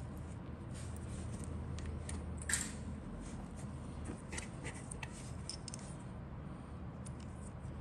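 Small clicks and taps of hard plastic scale-model kit parts being handled and pressed together, with one sharper click about two and a half seconds in, over a steady low hum.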